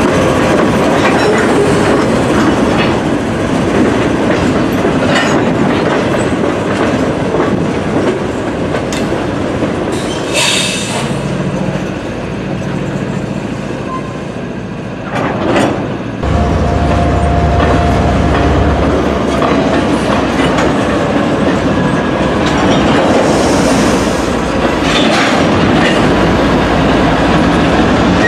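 Slow freight train rolling past: a diesel locomotive and then boxcars, the wheels clacking over rail joints, with a couple of short high wheel squeals.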